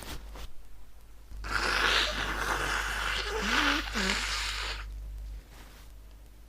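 A person sneezing: a noisy rush of breath lasting about three seconds, with a short voiced cry near its end.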